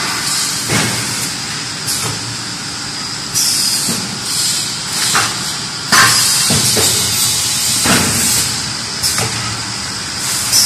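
DB-470PP plastic thermoforming machine running: a steady hiss of compressed air, with a few sudden loud blasts as its pneumatic valves vent, and short knocks from the moving mechanism.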